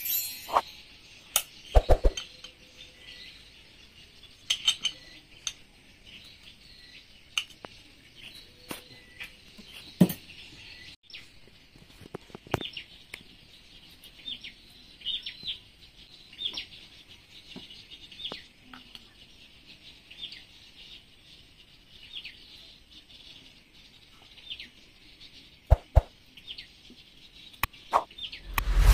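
Occasional sharp clicks and knocks of metal outboard-engine parts being handled as a piston is fitted to its connecting rod, with small birds chirping faintly throughout.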